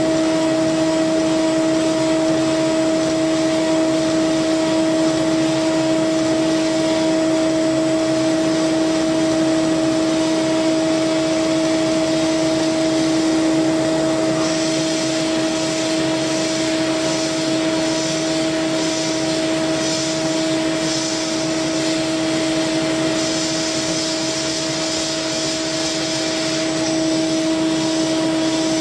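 CNC milling machine running, its spindle giving a steady whine at two pitches over a broad mechanical noise. About halfway a pulsing higher hiss of the tool cutting metal joins in and grows stronger in the last few seconds as chips fly.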